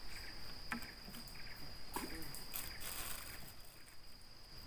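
Insects chirring in one steady high note, with a few light knocks and rustles about a second in and again two to three seconds in.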